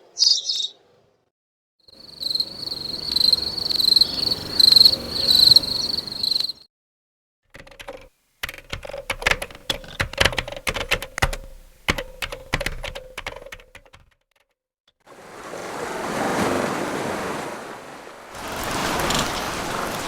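A montage of nature sounds separated by short silences: first a high, steady trilling, then a fire crackling and popping for several seconds, then the even rush of flowing river water.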